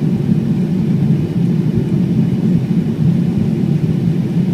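Boeing 777-300ER running with a steady, loud low rumble of engine and airframe noise.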